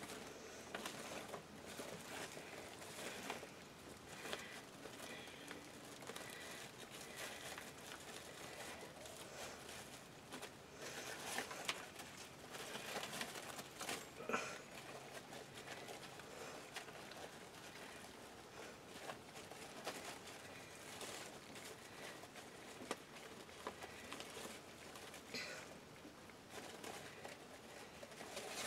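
Faint rustling and crinkling of wired fabric ribbon and sheer metallic ribbon being folded and tied into a bow against deco mesh, irregular, with a few sharper crinkles.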